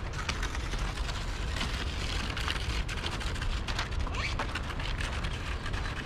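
Waterfall: a steady rush of falling, splashing water with a deep rumble underneath and a rough crackle on top.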